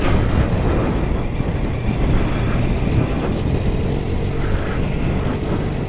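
BMW K1200GT's inline four-cylinder engine running as the motorcycle rides along, under steady, irregular wind rumble on the bike-mounted camera's microphone.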